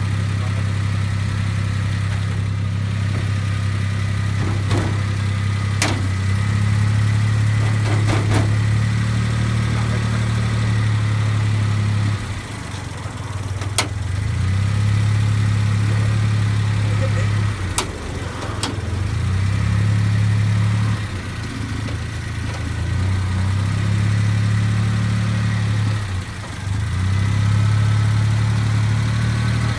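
Suzuki Jimny JA11's three-cylinder engine idling with a loud low drone that swells and dips several times, plus a few sharp clicks. The abnormal noise comes from the idle-up sensor wiring knocking against something.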